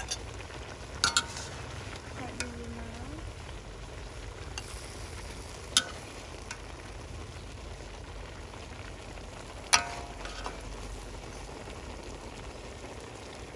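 Broth with cabbage rolls simmering in a steel wok, a steady bubbling hiss, with sharp clinks of a metal ladle against the wok and plate about one, six and ten seconds in, the last one ringing briefly.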